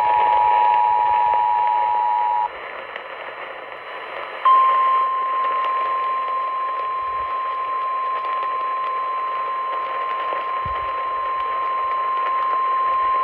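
Emergency Alert System two-tone attention signal sounding for the first couple of seconds, then cutting off to radio hiss. About four and a half seconds in, NOAA Weather Radio's single steady 1050-hertz warning alarm tone comes on and holds for about nine seconds, announcing the severe thunderstorm warning that follows.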